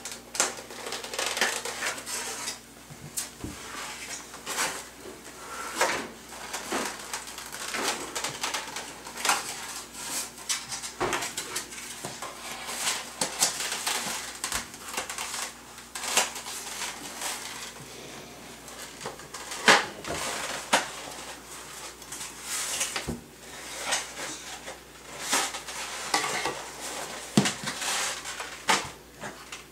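Kitchen utensils and cookware clattering and knocking irregularly as small children grab and rummage through them, with one sharper knock about two-thirds of the way through.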